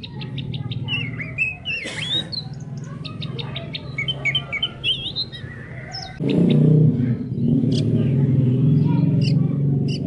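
Songbird chirping and twittering in quick, varied high notes and trills through the first six seconds. Underneath is a steady low droning chorus, which becomes the loudest sound about six seconds in.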